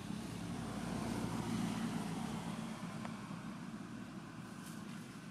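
Engine of a passing motor vehicle, a low drone that grows louder until about a second and a half in and then slowly fades.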